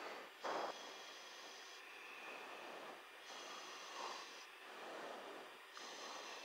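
Breathing heard over an aircraft crew intercom under a steady hiss, with slow swells every second or two and a short, louder puff about half a second in.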